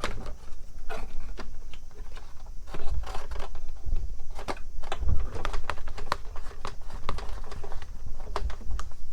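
Handling noise of a hose being worked through a small hole in the van's bodywork: irregular light clicks, taps and rubbing, with a couple of dull thumps.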